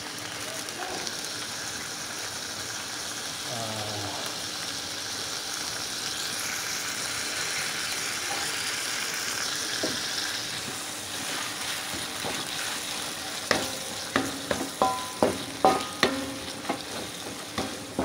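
Sambal terasi sizzling as it fries in oil in a wok. In the last few seconds a wooden spatula stirs it, knocking sharply against the wok two or three times a second.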